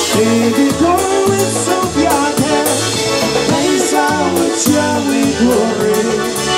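Live polka band: a man sings into a microphone over accordion and drum kit, with a steady bouncing beat and regular cymbal hits.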